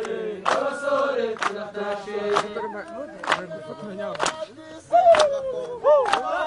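A group of voices chanting a song together, with a sharp beat about once a second.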